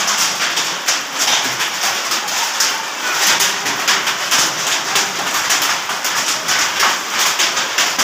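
Hail pelting down heavily: a dense, unbroken clatter of many small hailstones striking.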